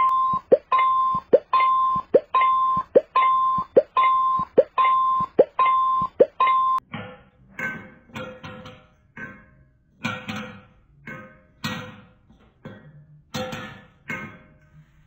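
A repeating electronic beep, a quick upward swoop followed by a held tone, sounds about ten times in the first seven seconds. It then gives way to a string of irregular short struck notes that die away quickly.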